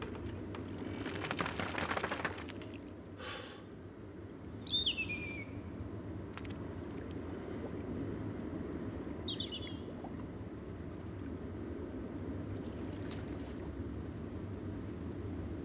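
A seabird calls twice, each a short falling cry, about five and nine seconds in. Under it runs a steady low wash of sea and wind ambience, with a couple of brief rushing noises about one and three seconds in.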